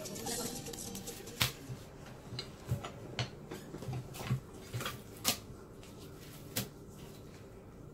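A series of sharp knocks and clatters, about eight in all, from a metal tortilla press and kitchen utensils being handled on the counter.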